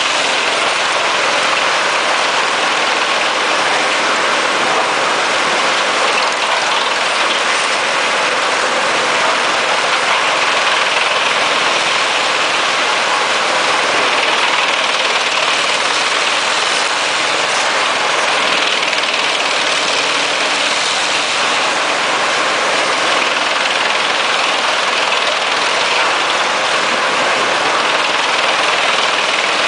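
Bruno Forest King drum wood chipper running on its own diesel engine: a loud, steady mechanical noise with no pauses.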